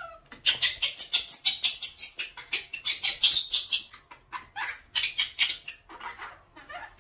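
Hands briskly scrubbing soap lather through a baby monkey's wet fur: quick rubbing strokes, several a second. A brief squeak from the baby monkey comes right at the start.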